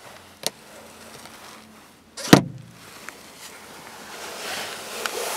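Handling noises in a car's rear cabin: a short click, then one heavy thump just after two seconds in, then rustling of movement near the end.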